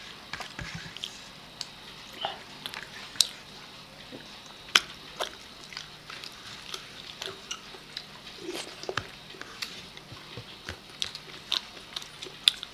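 Two people eating rice and chicken leg pieces by hand: chewing and biting sounds with scattered sharp clicks and smacks at irregular intervals.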